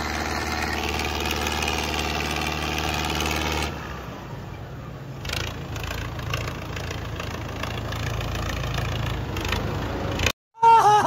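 Diesel engines of a Mahindra Arjun Novo 605 and a John Deere 5075E tractor running hard under load as the two pull against each other in a tug-of-war. The engine note is steady at first, then drops in level and turns rougher about four seconds in.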